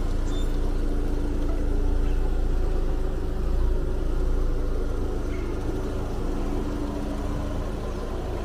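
Car engine running steadily at low speed with a low rumble and a constant hum, as the car is reversed slowly into a parking space.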